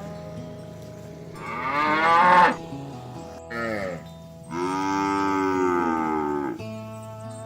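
Cattle mooing: a loud moo that bends up and down, a brief one a little later, then a longer moo falling in pitch, over steady background music.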